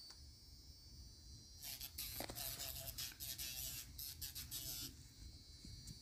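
Small corded pen-style electric nail file running with a faint high whine. From about one and a half seconds in to about five seconds, its bit grinds on a cockatoo's claws in a string of short, raspy hissing passes.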